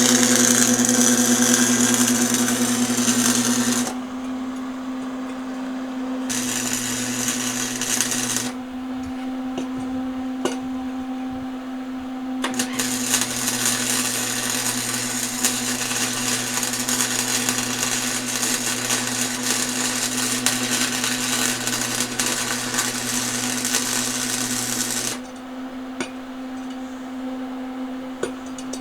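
Electric arc welding on a steel axle: the arc crackles and sizzles in three runs, about four seconds, then two seconds, then a long run of about twelve seconds, with pauses between them. A welding machine hums steadily underneath throughout. These are the full, deep weld passes that follow the tack welds.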